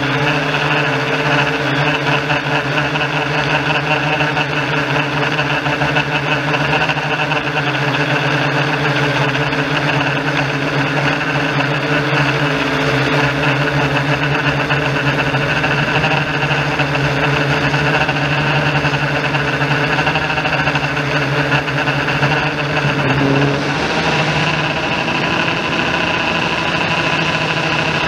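Yuneec Typhoon G drone's electric motors and propellers in flight, a steady multi-tone buzz heard close up from the onboard camera. About four seconds before the end the tones shift and the higher whine grows as the throttle changes.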